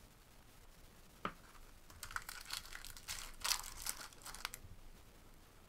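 Foil wrapper of a baseball card pack crinkling and tearing as it is ripped open by hand, after a single sharp click about a second in.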